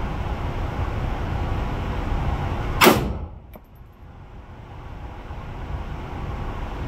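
A single rifle shot fired on an indoor range, a sharp crack a little under three seconds in. The steady low rumble drops away after the shot and slowly comes back as the recorder's level recovers, with a faint click about half a second after the shot.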